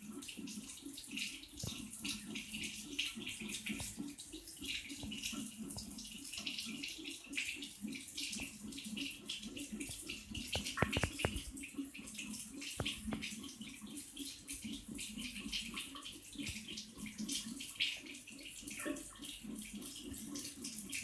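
Water running from a tap and spattering steadily, with irregular little splashes and a few sharper clicks about halfway through.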